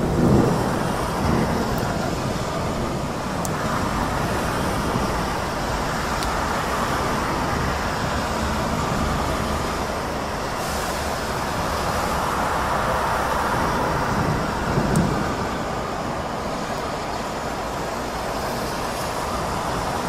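Heavy rain in a city street with traffic passing on the wet road, the hiss swelling and fading as vehicles go by. Low rumbles come just after the start and again about fifteen seconds in.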